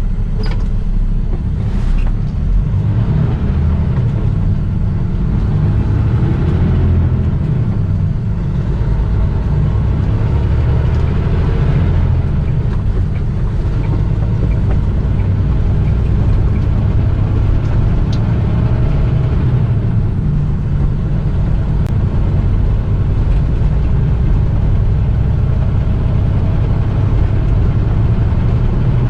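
Steady engine and road noise of a semi-truck heard from inside the cab while driving, heaviest in the low rumble.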